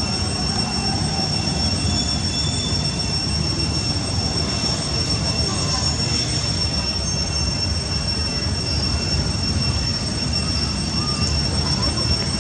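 Steady outdoor ambience: a constant high-pitched insect drone over a low rumble.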